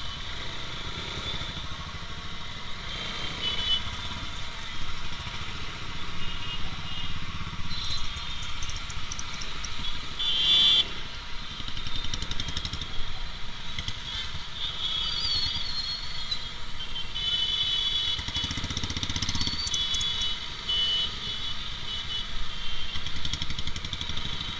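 Motorcycle engine running at low speed in slow, stop-and-go city traffic, with short high-pitched horn toots from surrounding vehicles now and then, most around 10 seconds in and over the second half.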